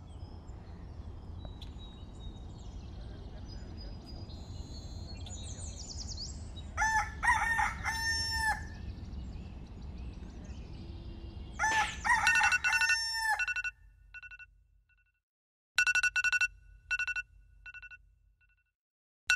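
A rooster crows twice, about seven and twelve seconds in, over a steady low rumble and faint high chirping. Near the end an electronic alarm sounds in short repeated beeps at a steady pitch.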